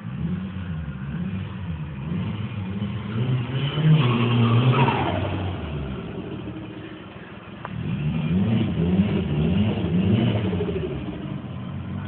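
Nissan 240SX engine being revved in repeated blips, its pitch rising and falling, with one bigger rev about four seconds in and a run of several quick revs near the end. The owner is demonstrating an exhaust leak.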